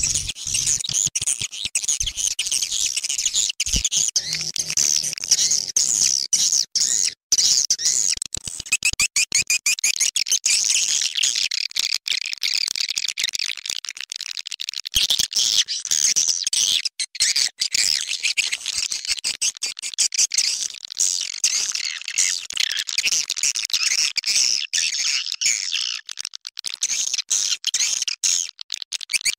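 Swiftlet lure call: a recorded and mixed chorus of edible-nest swiftlets twittering and chirping densely and without pause, high-pitched and fluttering. This is the playback that swiftlet farmers broadcast to draw birds into a nesting house.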